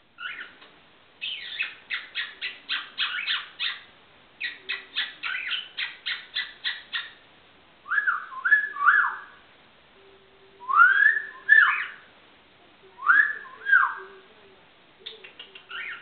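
Whistling and chirping traded at close range between a person and a pet lutino cockatiel. It opens with two quick runs of short, sharp chirps, about four a second, then several whistled notes that swoop up and down.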